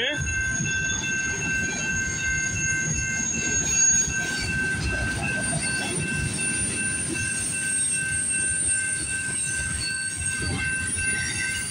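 Freight cars rolling past close by: a steady rumble and clatter of steel wheels on the rails, with a continuous high-pitched wheel squeal held on several steady tones.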